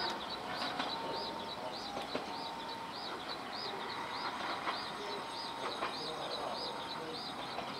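Diesel railcar running as it pulls out of the station, with a high chirp repeating about twice a second throughout.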